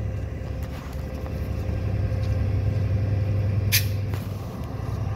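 Bombardier ALP-45DP dual-mode locomotive idling with a steady low hum, standing with its train. A short, sharp hiss of air cuts in briefly a little before four seconds in.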